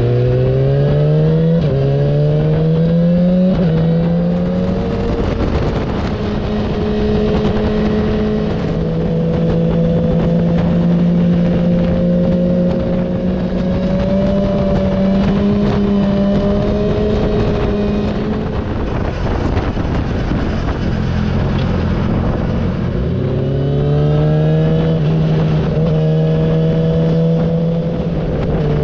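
Yamaha YZF-R6 sport bike's inline-four engine pulling up through the gears: its pitch rises, drops back at each shift and rises again over the first few seconds. It then holds a steady cruise with wind rushing past, and climbs through another couple of shifts near the end.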